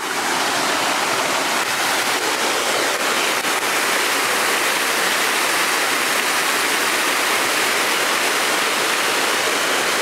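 Creek water cascading over rocks in a small waterfall: a steady, unbroken rush.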